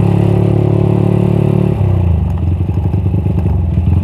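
Suzuki Satria F150 single-cylinder engine, bored out to 200cc, running at steady low revs, then dropping in pitch about two seconds in to an uneven low putter as the throttle comes off.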